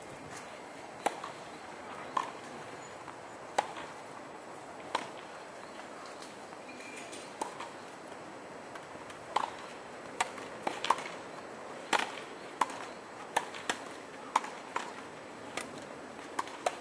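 Tennis ball struck back and forth with rackets and bouncing on the court: a string of sharp pops, some with a short ringing ping. They come a few seconds apart at first, then about once a second or faster in the second half, over a steady outdoor hiss.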